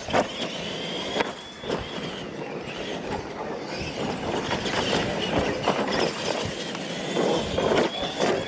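Electric R/C monster trucks racing over dirt, their motors and gears giving a high whine. Several sharp thumps come as the trucks hit and land off the ramps.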